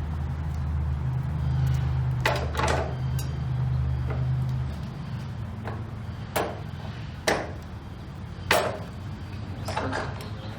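Scattered sharp knocks and clunks, about nine of them spread irregularly, over a steady low hum that stops about five seconds in.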